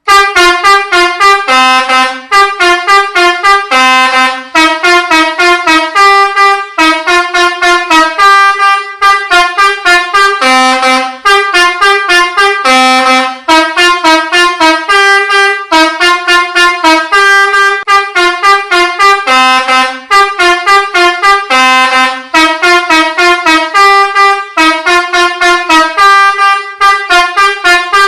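Telolet basuri, a multi-trumpet musical air horn on a tour bus, playing a fast melody of short, loud notes in a steady rhythm, the tune repeating phrase after phrase.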